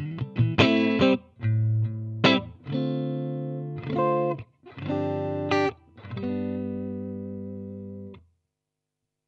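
Electric guitar played through an AmS Hurricane 20 combo amplifier: a string of struck chords with short gaps, the last one left to ring for about two seconds before it stops, followed by a second of silence near the end.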